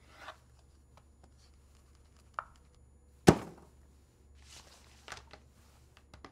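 A rubber stamp thumped down once onto paper on a desk, a single sharp knock a little after halfway, with fainter clicks and a brief rustle of handling around it.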